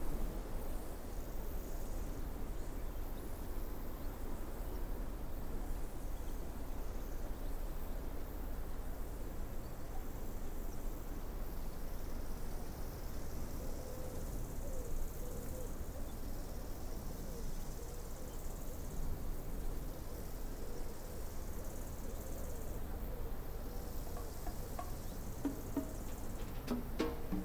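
Insects calling steadily over a low background rumble, with a few sharp clicks near the end.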